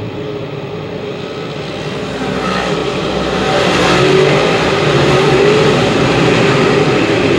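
A pack of 358 dirt modified race cars running at full throttle, their V8 engines blending into one steady drone that grows louder about two seconds in as the cars pass close by.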